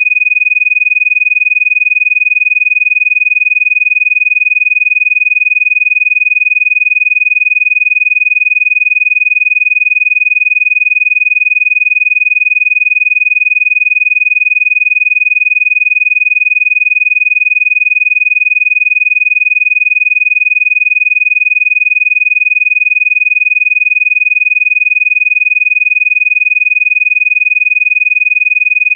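A Rife-frequency tone: one steady, high-pitched electronic tone, unchanging and unbroken.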